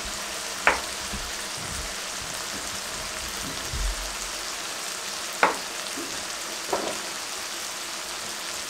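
Masala gravy sizzling steadily in a frying pan, with a knife knocking sharply on a wooden cutting board three times as boiled eggs are cut in half.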